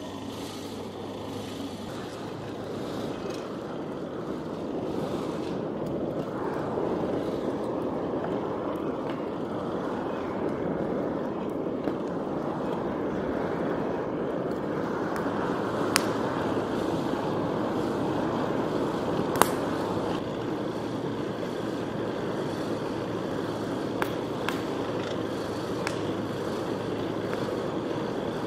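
Wood fire burning in a forge with a steady rushing noise, joined now and then by a sharp pop of burning wood.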